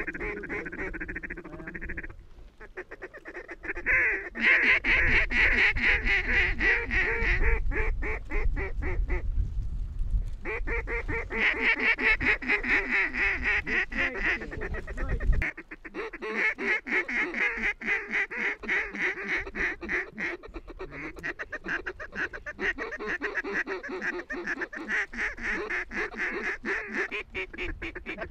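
Mallard ducks quacking and chattering in a rapid, almost continuous run of short calls, broken by a couple of brief pauses. A low rumble underneath stops abruptly about halfway through.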